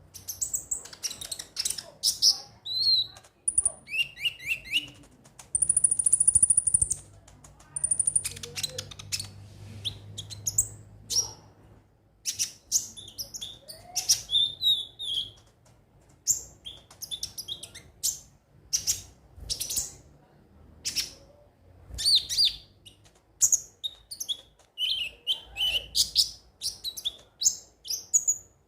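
Konin (kolibri ninja) sunbird singing: a rapid run of high, sharp chirps and short trills, with a held high whistle about six seconds in.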